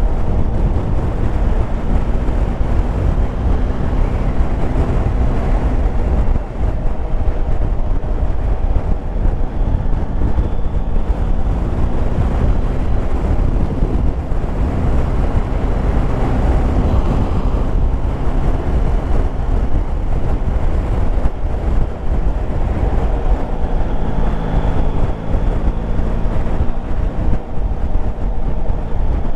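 Wind rushing over a helmet-mounted camera's microphone on a moving motorcycle. The Yamaha Tracer 9 GT's three-cylinder engine hums faintly underneath, fading in and out.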